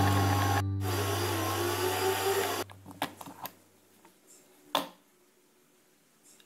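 Electric mixer motor running steadily with a low hum as its dough hook kneads bread dough. It cuts off abruptly about two and a half seconds in, and a few faint knocks follow as the dough is handled off the hook.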